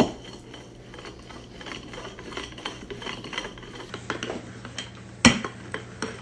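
Wooden rolling pin rolling out pie-crust dough on a floured counter, with a run of small clicks and knocks as it rolls, a sharp knock at the very start and another about five seconds in.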